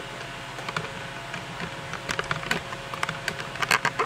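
Handling noise: scattered light clicks and knocks as the camera is repositioned and the battery charger is handled, growing busier near the end. A steady fan hum runs underneath.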